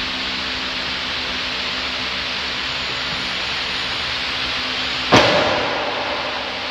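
Steady rushing of a wall-mounted electric fan with a low hum; about five seconds in, a single sharp clank with a short metallic ring that dies away within a second.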